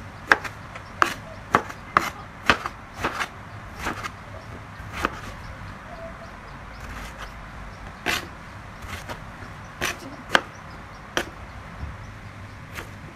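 Kitchen knife chopping eggplant on a plastic cutting board: sharp, irregular knife taps against the board, about two a second at first, then more spaced out.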